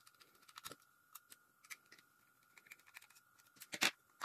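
Small plastic and metal parts of a disassembled Wahl Cordless Senior clipper being handled, giving a scatter of light clicks and taps, with a slightly louder clatter near the end.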